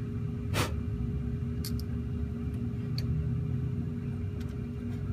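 A steady low rumble with a faint steady hum under it, and a few light metallic clicks, the sharpest about half a second in, as the bolts on the second driveshaft U-joint cap are started by hand.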